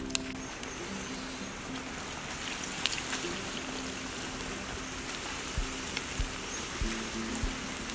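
Coconut water pouring in a thin stream from an opened green coconut into a clay jar, trickling steadily.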